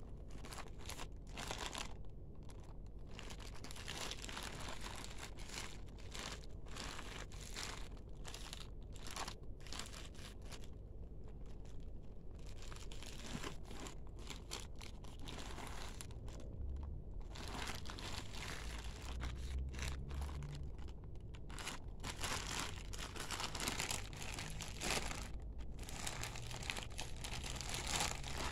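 Plastic courier mailer bag crinkling and rustling faintly in the hands as it is turned over and squeezed, in irregular bursts with short pauses.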